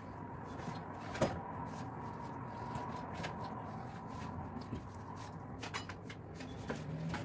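A few light clicks and knocks from a kitchen knife handled on a cutting board, the sharpest about a second in and a quick cluster of clicks later on, over a steady faint hum.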